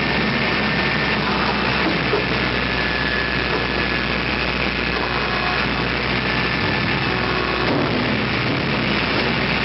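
Steady drone of heavy forging-press and manipulator machinery running, a low hum under a dense hiss with no hammer blows.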